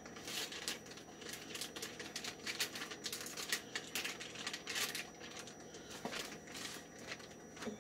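A clear plastic bag being handled, crinkling in quick irregular crackles and clicks.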